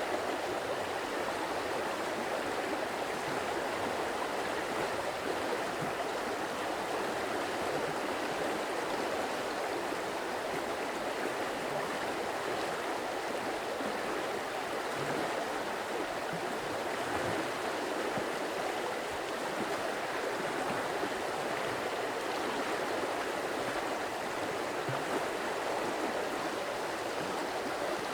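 Stream water flowing steadily: an even, continuous rushing of water with no pauses or changes.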